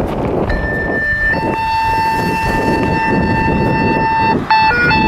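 Fire dispatch alert tones over radio: a short high tone, then a lower tone held steadily for about three seconds, a two-tone page. About half a second after it ends, a warbling alert tone starts, flipping rapidly between a high and a low pitch, over a steady rush of wind noise.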